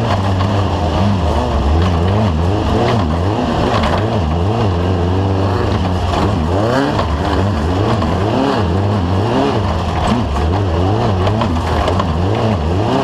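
Off-road race vehicle's engine running hard, its pitch rising and falling rapidly and repeatedly as the revs go up and down.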